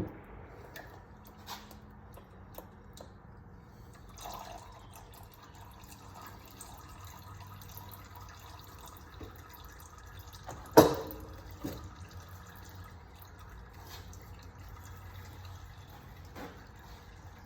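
Engine oil draining from a 2016 Cadillac ATS's 2.0-litre turbo engine, a steady trickle and drip, with one sharp knock about eleven seconds in and a few lighter clicks.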